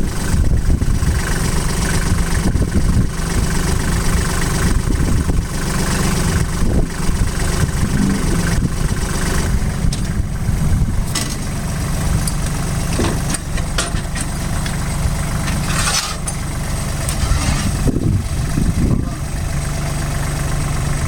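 An engine idling steadily, from a machine with a loader bucket, with a few sharp knocks about halfway through and near the end.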